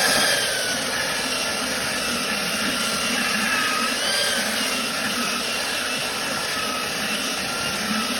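Metabo electric belt sander running steadily under test, a motor whine that wavers slightly in pitch over a steady rushing noise.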